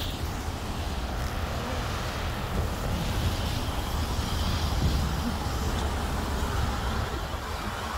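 City street traffic: cars passing on the avenue, a steady low rumble with a hiss over it.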